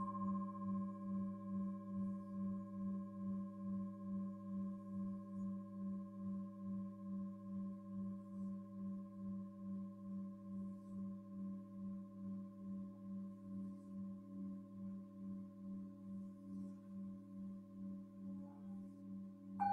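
Tibetan singing bowls ringing out in a long, slowly fading tone that pulses steadily, about two to three times a second, with several higher tones held above it. Right at the end another bowl is struck, starting a new, brighter tone.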